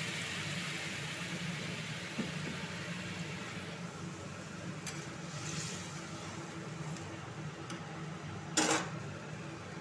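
Hot water poured into a kadai of frying amaranth stems and potatoes, hissing and bubbling, the hiss dying down after about four seconds. A steady low hum runs underneath, and there is one sharp knock near the end.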